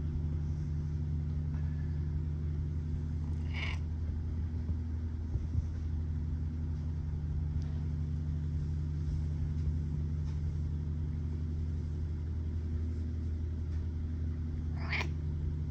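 Domestic cat purring steadily while being stroked on the head, a continuous low rumble. Two brief soft higher sounds come about four seconds in and near the end.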